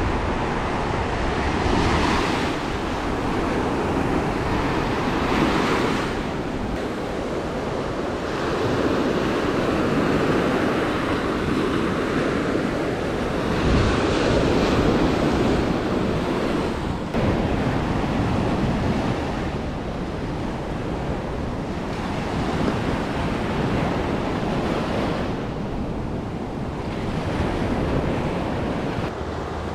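Small waves breaking and washing up a sandy beach, the surf swelling and easing every few seconds.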